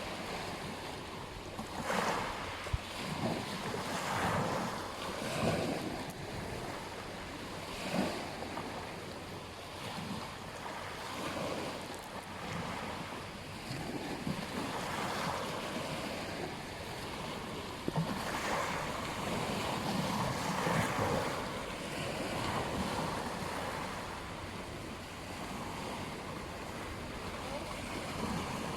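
Ocean surf washing onto a beach: a steady rush of waves that swells and fades every few seconds, with a few sharper splashes.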